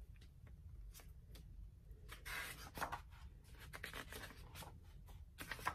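Hardcover picture book being opened and its stiff pages turned by hand: faint paper rustling and handling clicks, loudest about two to three seconds in and again near the end.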